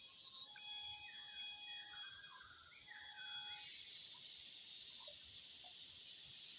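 Forest insects buzzing steadily at a high pitch, with a bird's whistled and gliding notes over the first three and a half seconds. A second, lower insect drone starts a little past halfway.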